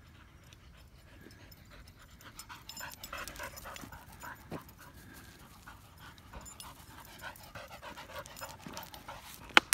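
A spaniel panting hard in quick rhythmic breaths as it runs with a ball in its mouth, the panting starting about two seconds in. A single sharp click near the end.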